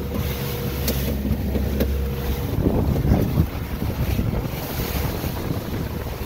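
Boat engine running steadily underway, with wind buffeting the microphone and the wake rushing astern.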